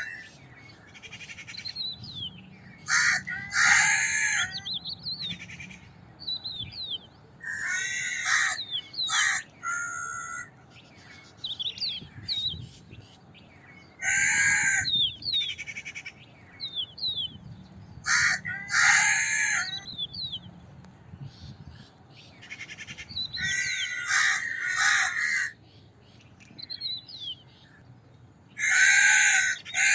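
Crows cawing in harsh clusters of two or three calls, about every five seconds, with small birds chirping faintly in between.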